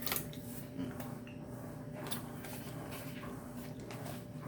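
Quiet sounds of eating and handling food: scattered soft clicks and rustles over a steady low electrical hum.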